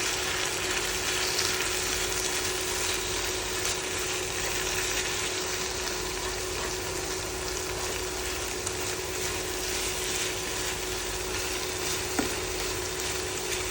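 Egg and sliced chicken frying steadily in oil in a hot pan, a continuous sizzle, with a faint steady hum underneath and a single sharp tap about twelve seconds in.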